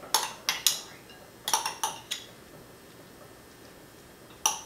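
Metal spoon clinking against glass bowls as chopped bell peppers are scooped out. There are two quick clusters of clinks in the first two seconds and one more near the end.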